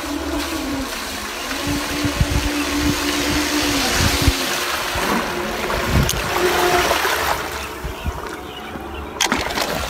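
Small remote-controlled fishing boat running fast across the water, its motor humming steadily and its hull throwing up a hissing, splashing wake as it comes in toward the bank. A couple of sharp knocks in the second half as it is taken in by hand at the water's edge.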